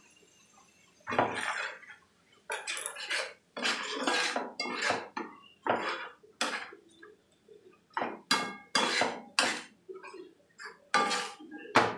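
Metal spatula scraping and stirring onion, ginger and garlic paste frying in oil in a frying pan: about a dozen short, irregular strokes starting about a second in.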